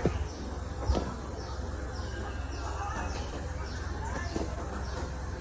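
Birds chirping, short falling calls repeating over a steady hiss and low hum, with a couple of soft knocks near the start.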